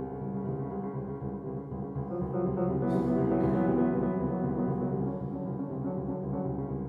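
Solo grand piano playing dense, rapidly repeated low notes and clusters that ring together, swelling louder about halfway through with two sharp accented strikes.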